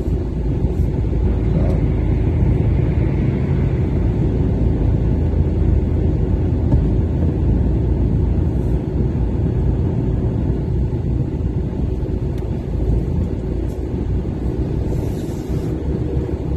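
Heavy lorry driving on a snow- and ice-covered road, heard from inside the cab: a steady low rumble of diesel engine and tyre noise.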